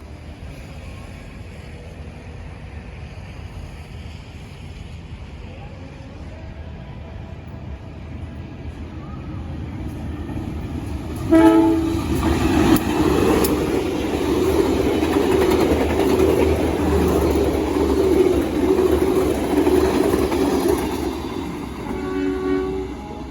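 Train horn sounding a long blast as a train approaches and passes, over the rising rumble and clickety-clack of its wheels. The horn starts suddenly about halfway through, is held for several seconds, and sounds briefly once more near the end.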